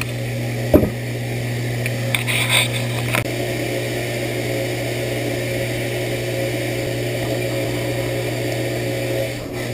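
Steady low hum in the background, with a sharp click about a second in and a few faint scrapes of pliers and a nut driver on a small motor gear around two to three seconds in.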